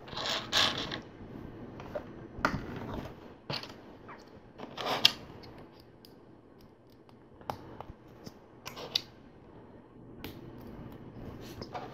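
Plastic LEGO bricks being handled and pressed together: irregular small clicks and rattles, busier in the first few seconds and sparser after.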